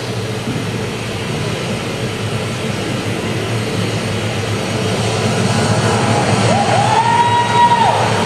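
Steady low rumbling room noise in a theatre hall as the stage opens, with a single held high note about six and a half seconds in that glides up, holds for about a second and a half, and drops away.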